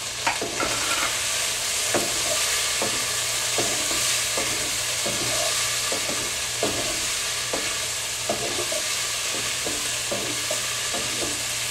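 Shrimp frying and sizzling in a pan while a utensil stirs it, knocking and scraping against the pan about once a second.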